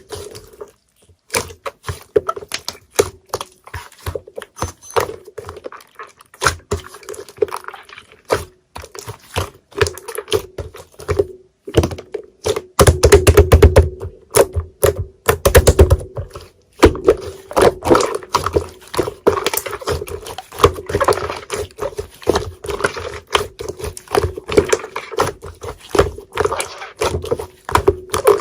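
A fast, irregular run of small sharp clicks and taps, like keyboard typing, over a faint steady hum. It pauses briefly near the start and again about eleven seconds in.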